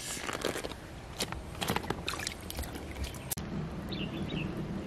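Loose pearls being handled in an opened pearl mussel shell: scattered light clicks of pearls against each other and the shell, over a faint trickle of water.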